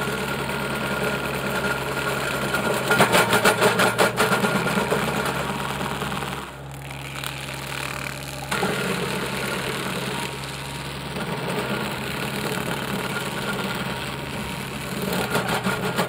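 John Deere 3320 compact tractor's diesel engine running under load, driving a Baumalight 1P24 stump grinder into a stump. The grinder cutting into the wood makes rapid chattering knocks about three to four and a half seconds in and again near the end.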